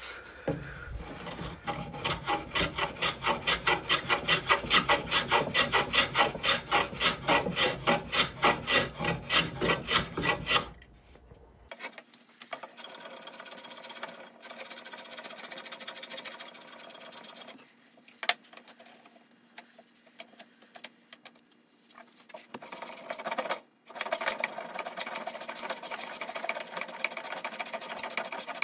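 Small hand plane shaving a hardwood table leg in quick back-and-forth strokes, about two or three a second, for the first ten seconds or so. After a short break the strokes go on softer and more continuous, then grow louder again near the end. The planing trims a glued-on patch flush and reshapes the leg.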